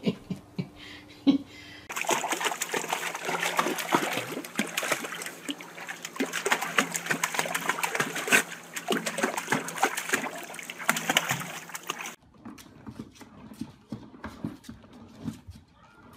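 Bathwater splashing and sloshing as a small white dog paddles through a tub, starting about two seconds in and cutting off after about ten seconds. Then quieter scattered knocks as a puppy clambers on a plastic spinning toy.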